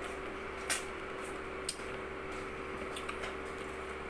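Crab and shrimp shells being cracked and picked apart by hand: a few sharp, separate clicks and cracks about a second apart, over a steady low hum in the room.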